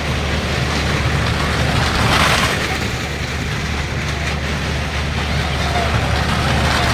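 Engines of stunt vehicles circling the wall of a well-of-death (maut ka kuan) show: a steady engine drone that swells twice, about five seconds apart, as a vehicle sweeps past.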